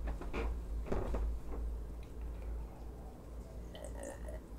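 A man gulping a drink from a glass jar mug, a cluster of short swallowing sounds about four seconds in. Before it, a few soft knocks and rustles as he walks in, over a low steady hum.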